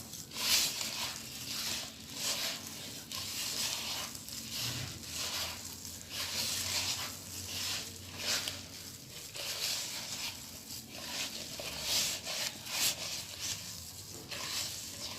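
Harcha dough of semolina, flour, oil, water and egg being stirred and worked in a bowl: a run of irregular swishing, scraping strokes, about one a second.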